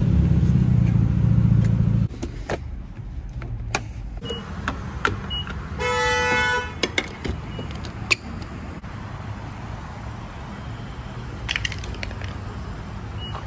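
A Mazda Miata's engine idling low, stopping abruptly about two seconds in. Then the clicks and clunks of a fuel pump nozzle being handled, a few short beeps, and a pitched tone lasting about a second midway.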